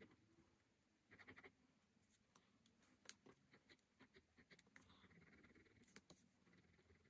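Faint scratching of a pen on sketchbook paper as shading strokes are hatched in: a quick run of rapid strokes about a second in, then scattered small ticks and taps of the pen tip.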